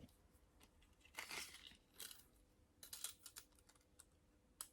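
Faint handling sounds of a multitool being picked over: a few soft rustles and scrapes about a second, two and three seconds in, with light clicks, the sharpest near the end.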